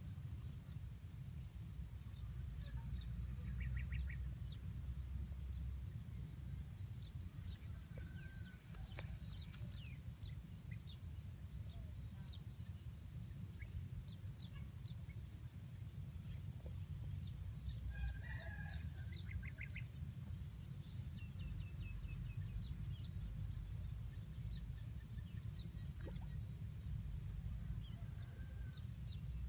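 Distant chickens clucking, with a rooster crowing now and then, over a steady high-pitched pulsing drone and a low rumble.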